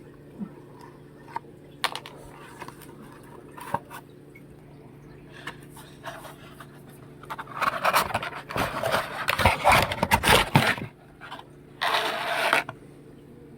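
A toy's cardboard box being cut open with scissors and handled: scattered small clicks and taps, then loud scraping and rustling from about seven and a half seconds in, and a shorter burst near the end.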